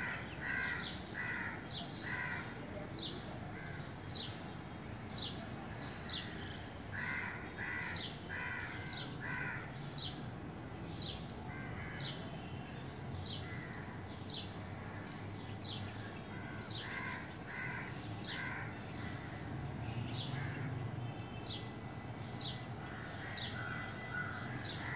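Crows cawing in runs of three to five calls, a few times over, above a steady series of short high falling chirps from another bird, about one a second.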